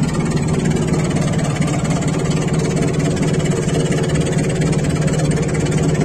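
Vehicle engine running steadily with a deep, even hum, heard from inside the cab while driving.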